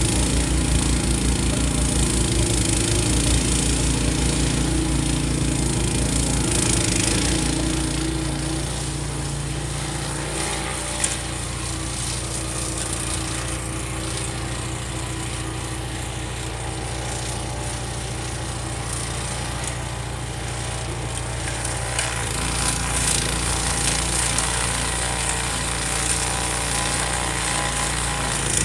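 Honda HSS1332 two-stage snowblower's single-cylinder engine running steadily under load as it clears snow. It is louder for the first several seconds, fades in the middle as the machine moves away, and grows louder again near the end as it comes back.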